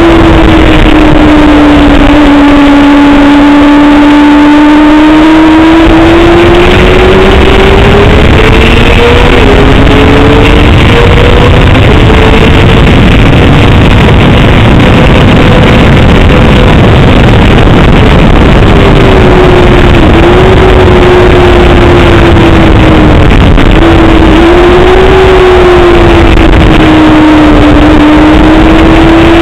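Honda sport bike's engine heard from onboard, its note rising and falling with the throttle, with a few quick sharp dips and jumps in pitch at gear changes. Heavy, steady wind rush on the microphone runs under it.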